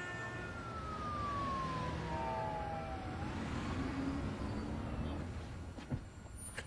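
City street traffic hum with a siren wailing, its pitch sliding down for about two seconds and then turning back up.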